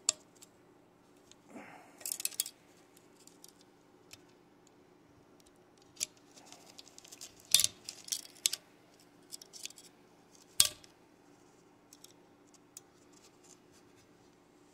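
Angled hand pick clicking and scraping against the small metal retaining clip on the governor gear shaft of a Predator 212 engine as the clip is pried up. Scattered sharp metal clicks come in small clusters, with one louder click about two-thirds of the way through.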